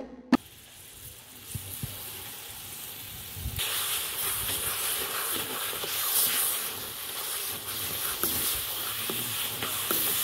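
Boiled potatoes sizzling and hissing in hot melted jaggery in a pan as they are stirred. The hiss grows louder about three and a half seconds in.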